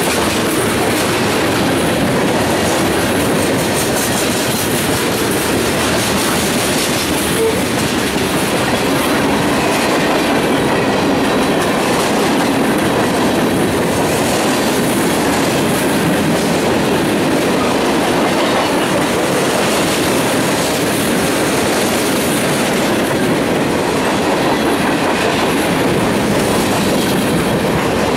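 Freight train rolling past, a steady loud rumble of wheels on rail with the clickety-clack of wheels over the rail joints.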